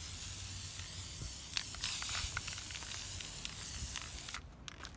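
Aerosol spray-paint can spraying paint in one long steady hiss that cuts off near the end.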